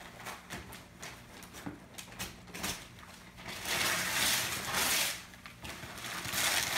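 Wrapping paper being torn off a large gift box: scattered crinkles and small rips, then a longer tear about four seconds in and another near the end.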